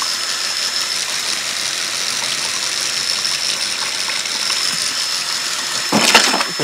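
Cordless drill spinning a loop of motorcycle chain through a bucket of water: a steady high motor whine over the rattle of the chain and water spraying off it. About six seconds in there is a louder clatter and splash as the running chain comes off the drill's wheel.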